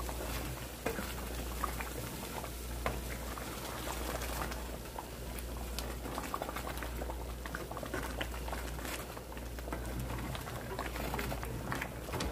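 Thick pepper stew simmering in a metal pot while a wooden spoon stirs it: scattered small pops of bubbling sauce and spoon clicks against the pot, over a steady low hum.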